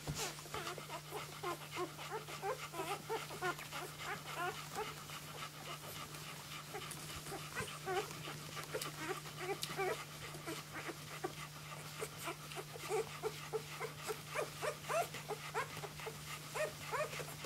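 Three-day-old flat-coated retriever puppies squeaking and whimpering in a constant chorus of short, high, overlapping cries while they nurse, over a steady low hum.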